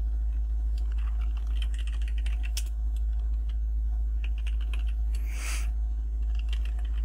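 Computer keyboard typing in short runs of keystrokes, entering lines of dashes. A brief hiss comes a little after five seconds in, over a steady low hum.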